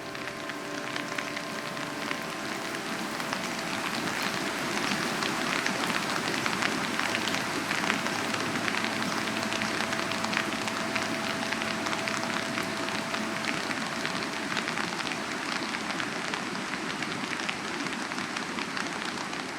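Steady rain falling on a hard surface, a dense hiss full of separate drop hits, growing louder about four seconds in. A faint held tone lingers underneath through most of it.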